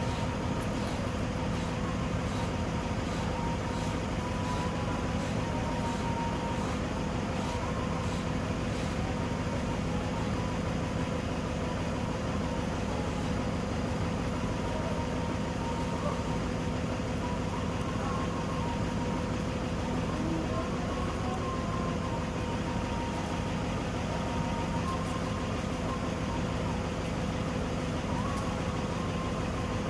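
A machine running steadily, a constant hum with a faint high tone held throughout.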